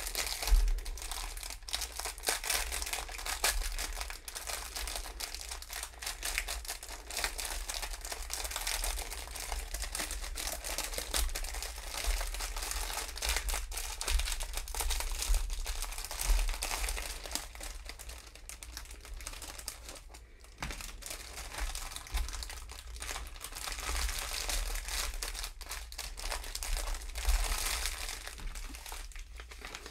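Clear plastic bag crinkling and rustling as it is handled and opened, the small bags of diamond-painting drills inside shifting against each other, with a brief lull about two-thirds of the way through.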